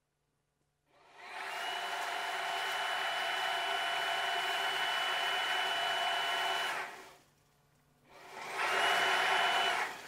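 Kobalt 24V cordless stick vacuum running in turbo mode, its motor and floor-head brushroll spinning up about a second in with a steady high whine. It winds down around seven seconds and starts up again a second later.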